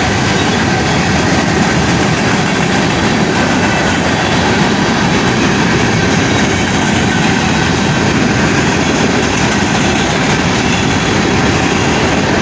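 Railroad cars of a Canadian Pacific train rolling steadily past a grade crossing, a loud continuous rumble of wheels on rail.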